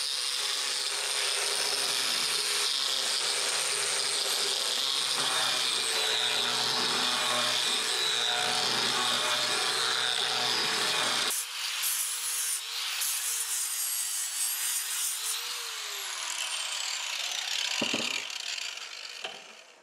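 Angle grinder grinding the inside of a hand-forged steel cup, a steady loud grinding against the metal. About eleven seconds in it comes off the work and runs free with a wavering whine, which falls in pitch and fades as the grinder spins down near the end.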